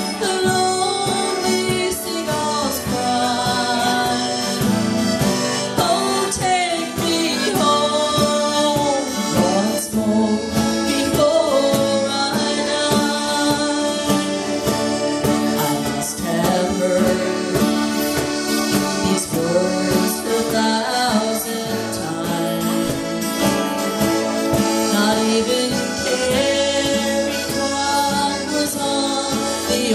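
Live folk band playing an instrumental passage: a bowed fiddle carries a sliding melody over a strummed twelve-string acoustic guitar and a steady cajon beat.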